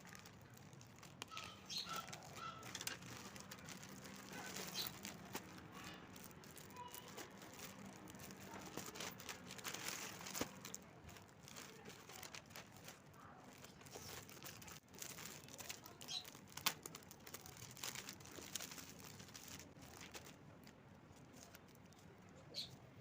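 Packaging rustling and crinkling in irregular handfuls, with scattered sharp clicks, as a parcel holding a dress is opened and handled.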